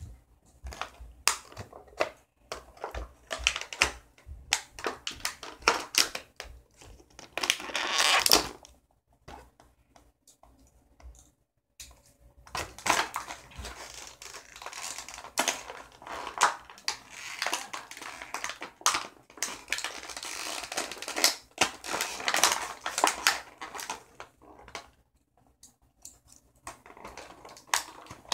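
Clear plastic toy packaging crinkling and crackling in irregular bursts as it is worked and pulled open to free the figure, with a pause of a few seconds about a third of the way in.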